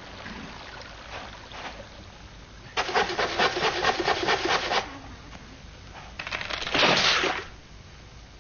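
A saw rasps through a palm trunk in quick strokes for about two seconds. A few seconds later comes a louder rushing crash as the palm tree falls over.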